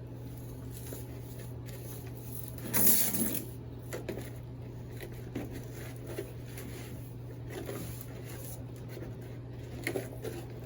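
Potting soil and flowerpots being handled while a basil plant is repotted: one loud rustling scrape about three seconds in, then scattered light knocks and clicks, over a steady low hum.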